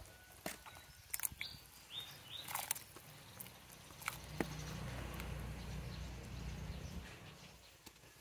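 A wooden spoon taps and scrapes as flaked cooked fish is pushed off a banana leaf into a pot of simmering broth, with a few short bird chirps about two seconds in. From about four seconds in, a low rumble runs for about three seconds.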